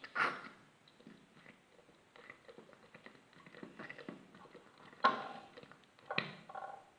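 Liquid soap being squeezed out of a plastic bottle for slime, with a few short squirting noises, the loudest just after the start and two more around five and six seconds in, among small clicks and handling sounds.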